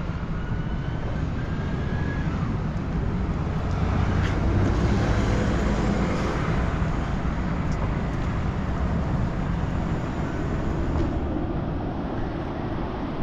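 City street traffic: a steady rumble of passing vehicles, growing louder about four to seven seconds in as one passes close.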